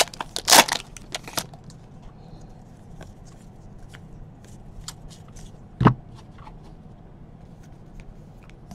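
Baseball trading cards being handled and sorted: papery flicks and rustles as cards slide against each other and are laid down, busiest in the first second and a half, with one thump on the table just before six seconds in.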